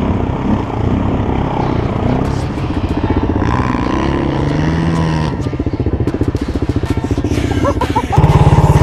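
Quad bike engines running, with an engine revving up and down in the middle. A little past eight seconds in, the engine sound jumps much louder into a steady, fast-pulsing run.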